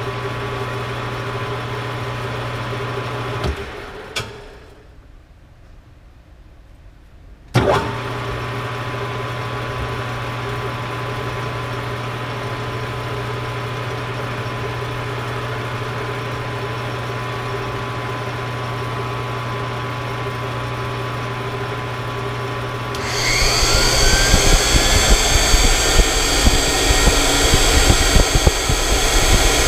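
Tool post grinder and metal lathe running with a steady hum while grinding a tungsten carbide cutter with a stone wheel. The hum drops away about three and a half seconds in and comes back with a click about four seconds later; near the end the sound turns louder and rougher, with a high hiss, as the wheel bites into the carbide.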